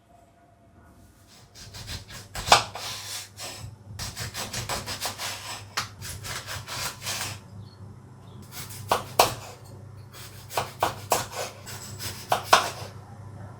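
Ingredients for lemon ginger tea being prepared by hand in quick rasping strokes, in three runs with short pauses and a few sharper knocks.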